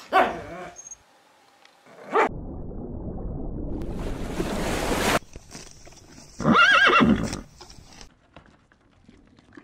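A horse whinnying once, a loud wavering call of about a second, some six and a half seconds in. Before it come two short sharp calls, one at the very start and one about two seconds in, followed by a few seconds of rushing noise.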